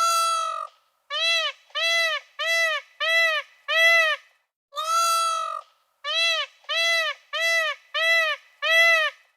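An animal's loud pitched calls in two runs, each starting with one longer call followed by five or six shorter ones, evenly spaced about two a second. Each call arches up and back down in pitch.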